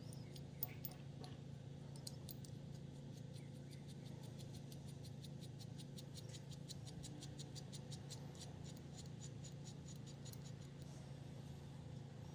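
Small metal clicks as the parts of a hand plane's frog and its depth-adjustment nut are handled and screwed together: two sharper clicks under a second in, then a run of faint, rapid ticks, about five a second, for several seconds. A steady low hum sits underneath.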